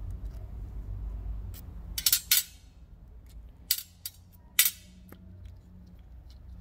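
Small metal carburetor parts clinking sharply against a hard work surface, four quick clinks in the middle stretch, over a low hum that fades after the first two seconds.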